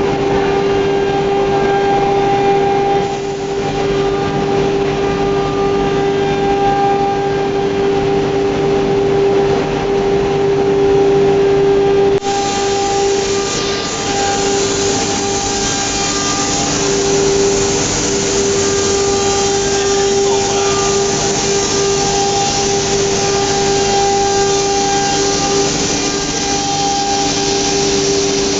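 ATC CNC router running, its spindle giving a steady whine over machining and motor noise. There is a sudden short break about twelve seconds in, after which a high hiss is stronger.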